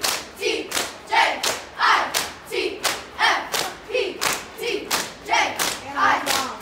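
Cheerleading squad chanting in unison while clapping to a quick, even beat of about three claps a second.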